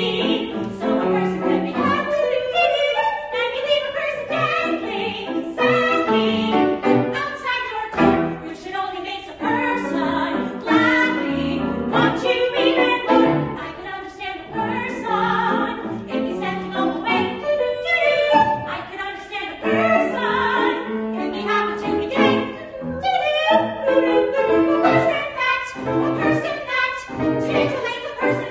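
Three women's voices singing a show tune together in close harmony, with piano accompaniment.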